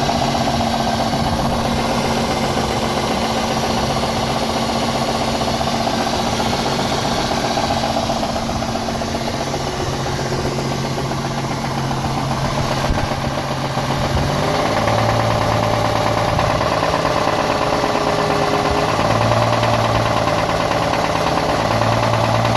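2001 Ford Mustang's 3.8-litre V6 idling with a rapid knock, which appeared after the engine ran very low on oil and was topped up with four quarts. About two-thirds of the way through, a deeper steady hum joins the engine sound.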